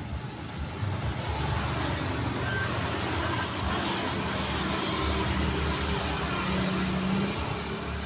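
City road traffic: vehicles passing with tyre and engine noise, growing louder about a second in, and a steady low engine hum through the middle.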